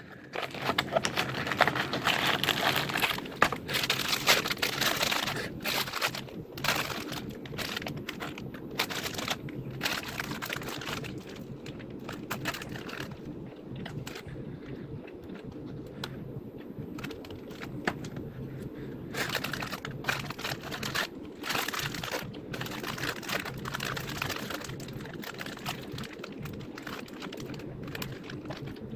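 Plastic candy wrappers and packaging crinkling and crackling in irregular bursts as they are handled and torn open.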